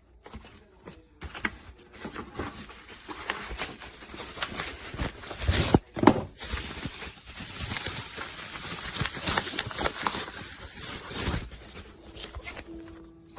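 Irregular rustling and clattering handling noises, with a couple of louder knocks about six seconds in.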